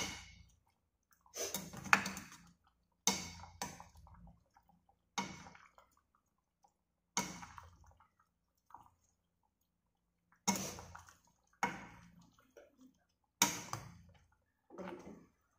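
A metal spoon scooping sauce from a stainless steel pan and pouring it over a whole braising chicken, about ten times, each scoop a short scrape or clink of the spoon on the pan followed by a brief splash of liquid.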